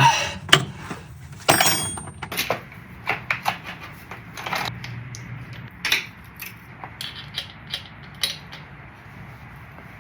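Metal tools being handled: a run of irregular clanks, clinks and knocks, loudest in the first few seconds and thinning out near the end.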